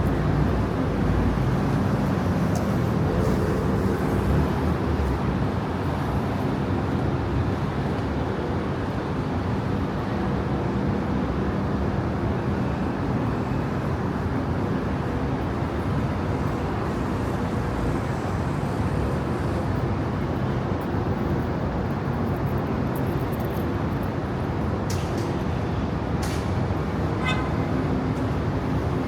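Steady road traffic on a busy city street: vehicle engines running and tyre noise, with a few short clicks and a quick run of short beeps near the end.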